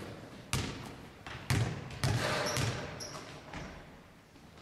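A basketball bouncing on a wooden gym floor: a series of thuds about half a second apart that grow fainter toward the end, echoing in the large hall.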